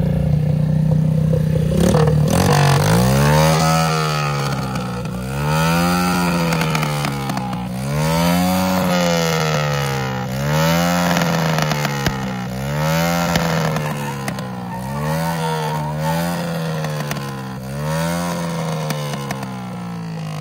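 A car's engine revving up and down over and over as it does donuts. The note is held steady at first, then from about two seconds in it rises and falls roughly every two seconds over a broad hiss.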